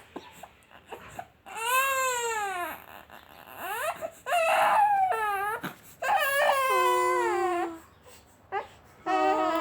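Two-month-old baby crying in fussy wails, about four separate cries with short pauses between them.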